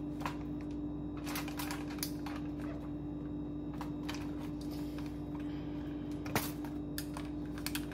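Irregular light clicks and taps of chopped vegetables being pushed and stuffed into a whole catfish by hand, over a steady low hum.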